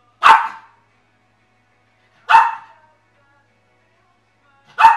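A small dog barking: three single sharp barks about two and a half seconds apart, each one short and loud.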